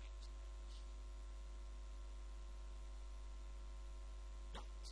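Steady electrical mains hum, a low drone with several fainter steady tones above it over a light hiss. A faint click comes about four and a half seconds in.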